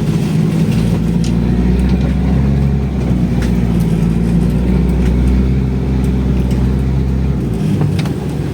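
Off-road 4x4's engine running steadily at low revs, with scattered light knocks. The deepest part of the engine sound drops off about seven and a half seconds in.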